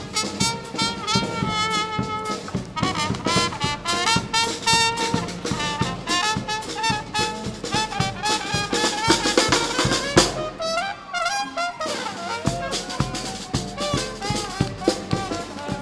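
Marching brass band playing: horns carry a melody over a steady drum beat.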